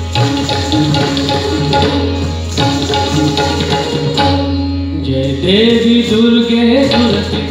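Live Indian classical devotional music: tabla playing a rhythm over a steady drone, with a gliding melodic line entering about five seconds in.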